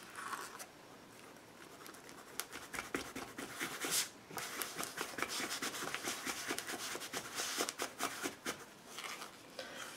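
Thick, doughy homemade texture paste (baby powder, gesso and Mod Podge) being stirred and scraped around a plastic tub, a run of short scrapes and sticky clicks a few times a second starting about two seconds in.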